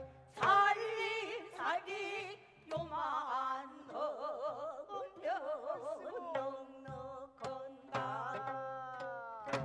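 Gayageum byeongchang: a woman sings in pansori style with wide, wavering vibrato while plucking the gayageum. A few low strokes of a barrel drum keep time.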